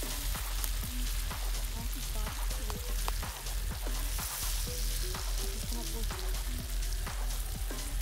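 Breaded calf liver frying in oil in a cast iron skillet, sizzling steadily, with frequent small clicks and scrapes as a fork turns the pieces.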